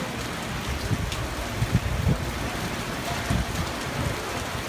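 Steady rain falling, with a few brief low thumps about two seconds in.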